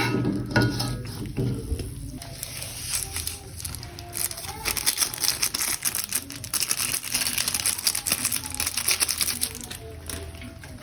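Plastic packaging crinkling and rustling, with a quick run of small clicks and crackles through the second half.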